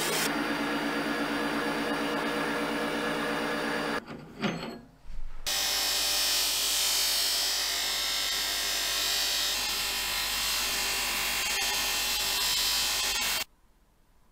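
A metal lathe spins a steel rod while a hand presses an abrasive strip against it. About four seconds in, after a short break, a bench grinder's buffing wheel runs with a steel rod held against it for polishing, giving a steady hiss that stops suddenly near the end.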